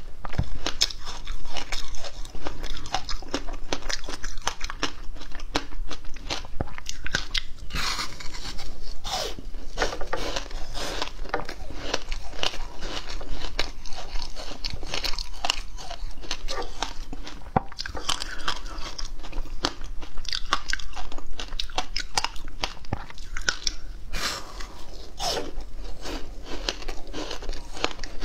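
Frozen passion fruit ice being bitten and chewed: dense, irregular crunching and cracking as the ice breaks between the teeth.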